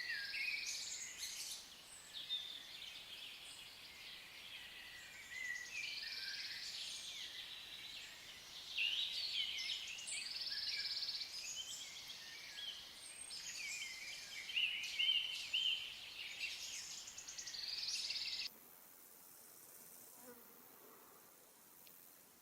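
Several songbirds singing, with varied chirps and warbling phrases overlapping. About three-quarters of the way through, the song cuts off abruptly, leaving a faint steady hiss.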